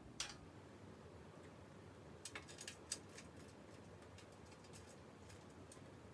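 Faint, irregular clicks and taps of metal parts being handled and fitted at a bicycle's rear wheel, a short cluster of them a couple of seconds in, over quiet room tone.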